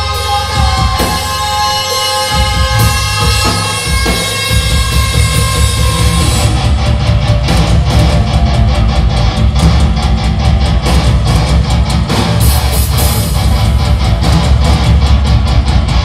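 Live doom/sludge metal band playing: distorted electric guitars and drum kit. Held ringing chords for the first few seconds, then about six seconds in the full band drops into a heavy, dense passage with steady drum hits.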